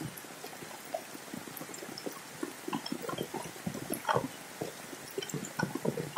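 Raindrops falling on a corrugated metal roof: irregular taps over a steady hiss of rain. The taps come thicker after about two and a half seconds.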